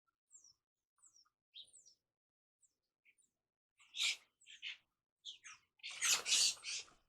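Birds calling: a series of short, high, falling chirps, then louder, harsher calls about four seconds in and a loud, rough call near the end.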